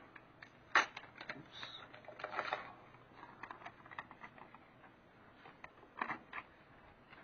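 Aluminium foil crinkling and crackling as it is peeled, handled and pressed down by hand. It comes as scattered crackles, with a sharper crack about a second in and another burst near six seconds.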